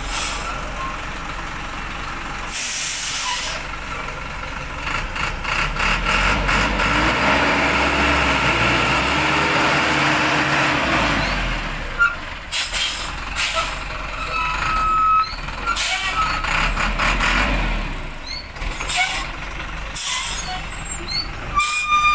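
Diesel engine of a loaded Thaco Forland dump truck running as the truck moves off along a dirt road, its pitch rising and falling about midway. Several short hisses of released air from the brakes break in.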